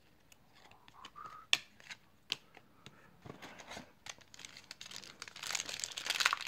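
Trading cards handled with a few sharp clicks, then, from about five seconds in, a foil baseball-card pack wrapper crinkling louder and louder as it is pulled open.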